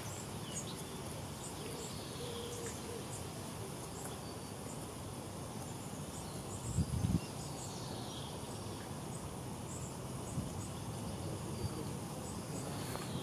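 Outdoor ambience of small birds chirping and calling over a steady low rumble, with one brief low bump about seven seconds in.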